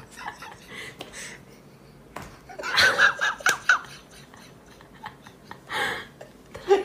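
A person laughing in bursts, with a few sharp slaps of a hand patting a cat's rump.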